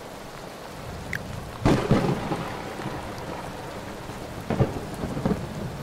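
Steady rain with a loud rumble of thunder about two seconds in and shorter rumbles near the end.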